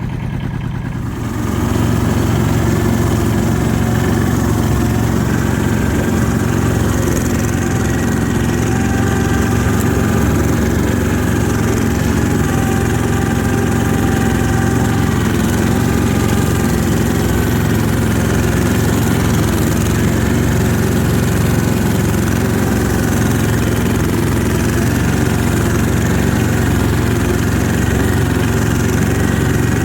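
Yanmar diesel engine of an Ockelbo snowmobile running steadily, getting louder about a second and a half in as the sled pulls away and then holding an even note under way.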